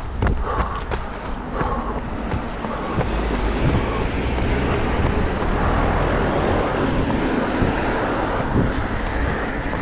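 Steady wind rumble on the microphone mixed with road traffic noise, with a few light knocks about half a second in.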